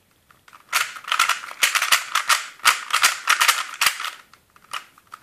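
Cheap plastic 3x3 speedcube, a Zhanchi knock-off, being turned fast: a rapid run of plastic clicks and clacks from the layer turns, starting about a second in and thinning out near the end. The cube is freshly lubricated and turning smoothly.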